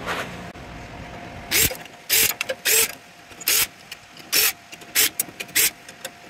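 Cordless drill/driver run in short trigger bursts, about seven of them beginning about a second and a half in, backing screws out of copper bus bars.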